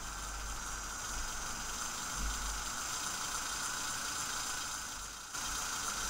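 Two fischertechnik electric drive motors whirring steadily through their gears under joystick control, with a short dip a little past five seconds in. The left motor runs slower than the right one, a fault the owner can't explain.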